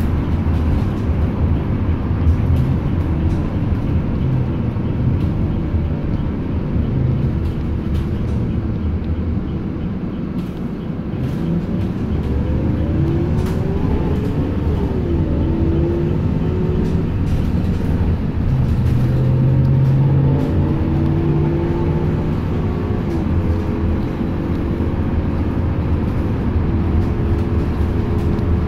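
Ride noise heard from inside a moving city transit bus: a steady low engine and road rumble. Partway through, a whine rises and falls in pitch over it.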